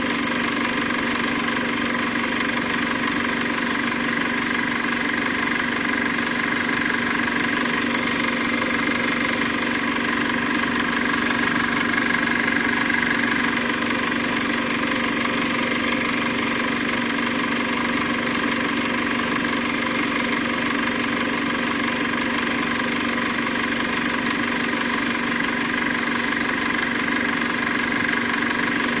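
Steady mechanical running noise with a fine, fast rattle, unchanging throughout.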